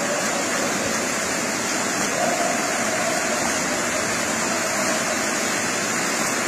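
Steady rushing of floodwater running through a flooded warehouse: an even, unbroken hiss of moving water.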